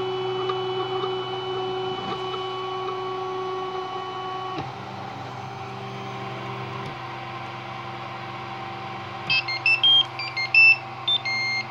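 CTC dual-extruder 3D printer, a Makerbot Replicator Dual clone, running with its motors whining in several steady tones that change about four and a half and seven seconds in. Near the end its buzzer plays a short tune of beeps at different pitches, the signal that the print has finished.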